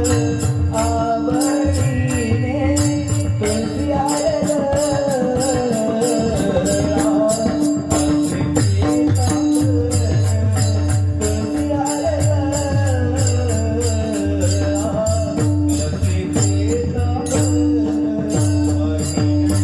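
Marathi Warkari devotional singing: a voice carries a slow, wavering melody over a steady held drone. Metal hand cymbals keep an even beat, with a drum underneath.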